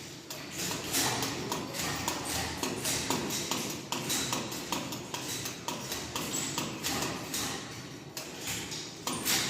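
A bag hung from a spinning ceiling fan, flapping and knocking in fast, irregular taps, several a second, over a steady rushing noise, with one louder knock near the end.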